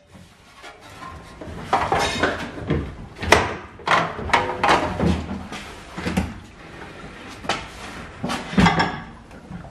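Irregular clanks, knocks and rattles of metal parts being worked on while a van's fuel tank is unbolted and lowered on a trolley jack and a plank of wood, with the sharpest knocks about three seconds in and near the end.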